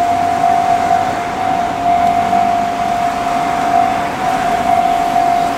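Railway level-crossing warning bell ringing with a steady, high, insistent tone, signalling that a train is approaching as the barriers come down. Cars pass close by underneath it.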